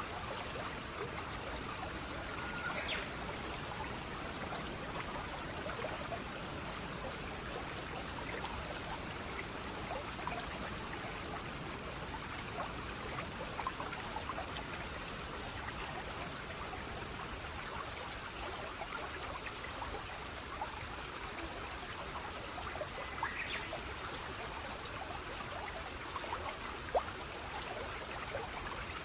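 Steady running water of a small stream, trickling and splashing. Two short rising chirps sound, about three seconds in and again near the end, and there is one sharp click.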